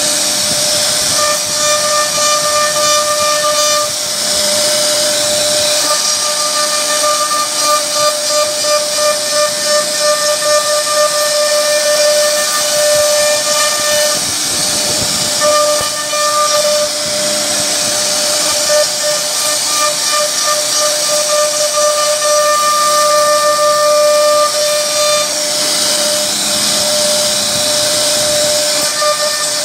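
CNC router spindle running with a steady high whine while its cutter carves into a wooden door panel, over a hissing cutting noise. The cutting noise pulses quickly for several seconds in the first half.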